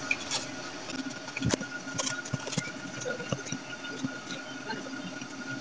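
Water in a Sanken water dispenser's hot tank sounding like it is boiling, with irregular small pops and ticks, as the newly replaced tank heater heats it: the sign that the heater is working again.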